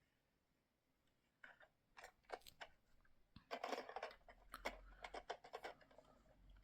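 Faint clicks and scraping noises, a dozen or so irregular ones beginning a little over a second in, with a dense scratchy cluster just past halfway.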